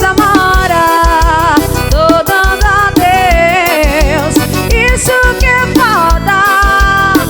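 Forró band music: a wavering lead melody over a steady, driving bass-drum beat.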